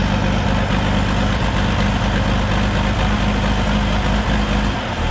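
Turbocharged farm tractor engine idling with a steady, even hum that dips briefly near the end.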